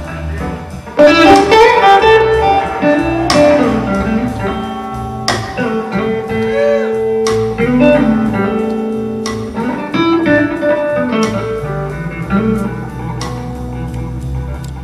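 Blues guitar played live through a stage amplifier: a lead line of notes that bend in pitch and are held.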